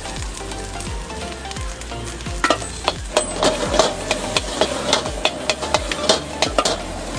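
Rice and greens sizzling in a hot wok while a metal spatula scrapes and clacks against the pan. The clacks come thick and fast from about two and a half seconds in.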